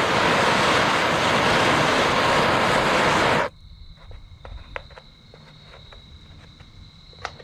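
Bernzomatic trigger-start propane torch flame blowing steadily, then shut off suddenly about three and a half seconds in. Afterwards faint steady insect trilling and a few light clicks.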